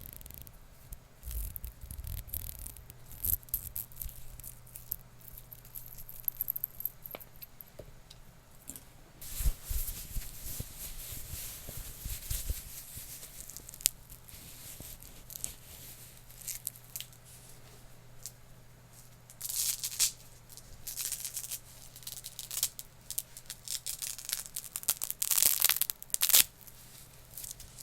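Close-miked scratching and rustling of objects being handled, with scattered clicks and taps. There are louder scratchy bursts around twenty seconds in and again near the end.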